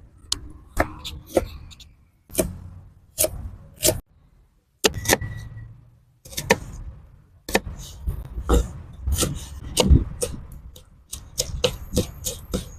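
Kitchen food-prep handling: irregular knocks, taps and short scrapes of utensils or a knife against a board or dish, in clusters broken by a few brief silences.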